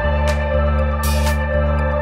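Background music: sustained chords over a steady bass, with a percussion hit about once a second.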